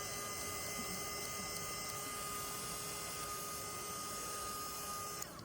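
Electric hot-air blower running steadily, a motor hum and whine over a rushing hiss, used to heat the phone's adhesive. It switches off near the end, its pitch falling as the motor winds down.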